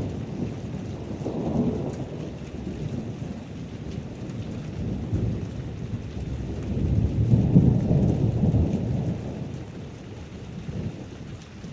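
Heavy rain falling steadily while deep thunder rumbles in two rolls, a smaller one about a second and a half in and a longer, louder one past the middle that dies away near the end.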